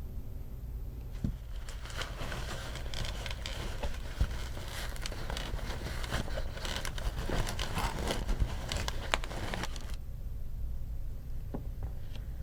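Crinkling and rustling handling noise, dense crackles from about two seconds in until about ten seconds in, over a low steady hum.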